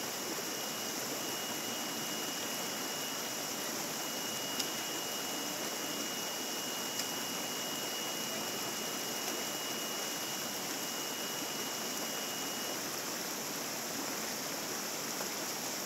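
Small mountain stream rushing and splashing over rocks and little cascades, a steady even noise. A thin steady high tone runs over it and stops about three-quarters of the way through.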